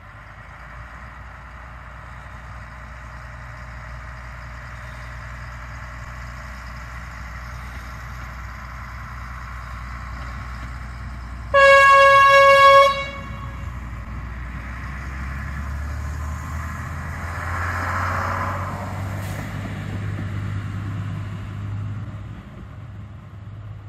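Diesel engine of the Jenbacher narrow-gauge railcar VT 137 515 running, growing steadily louder as it approaches. About halfway through comes one loud single-pitched horn blast lasting about a second and a half, sounded as a warning for the road crossing. The railcar keeps running past afterwards.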